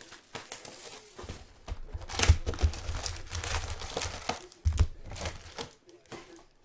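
Plastic wrapping on trading card boxes and packs being crinkled and torn by hand, in irregular crackling bursts with a few dull handling knocks, loudest about two and a half seconds in and again near five seconds.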